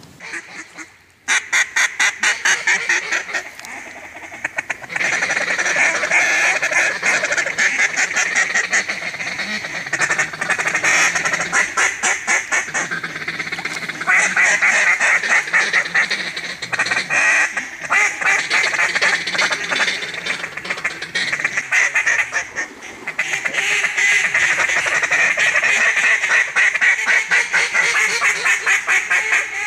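Mallard duck call blown hard and fast: long runs of rapid quacks and feed-call chatter, several pulses a second, with a few short breaks, calling to passing mallards.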